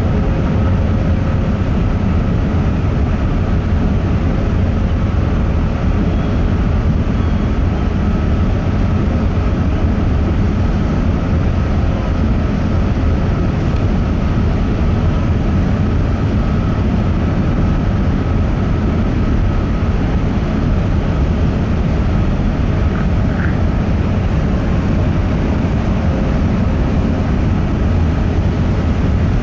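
Large car ferry's engines and machinery giving a loud, steady, deep rumble with a faint hum over it, heard from aboard the vessel as it docks.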